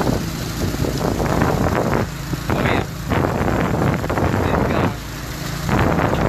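An engine running steadily with a low hum, under gusty noise that rises and falls, while a pump draws water out of a swamped jet ski through a suction hose.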